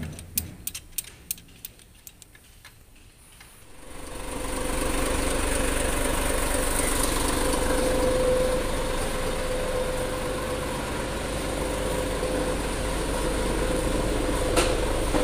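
Mitsubishi 6D24-T six-cylinder turbodiesel truck engine running steadily, coming in about four seconds in. A few seconds of sharp clicks, about three a second, come before it.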